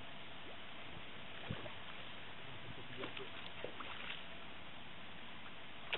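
A hooked fish splashing and swirling at the water's surface close to the bank while being played on a rod, a few faint splashes mostly between about three and four seconds in, over a steady hiss.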